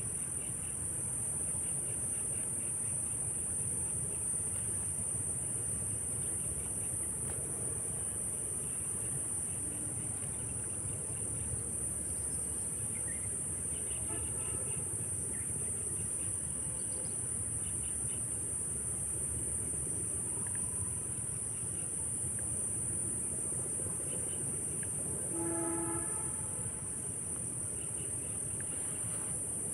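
Steady high-pitched chorus of crickets over a low steady rumble, with a short horn note about 25 seconds in.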